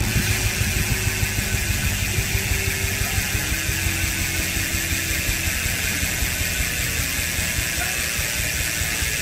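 SRAM X9 rear hub's freehub ratchet buzzing steadily as the wheel spins, a fast, even run of pawl clicks. A steady low hum sits underneath.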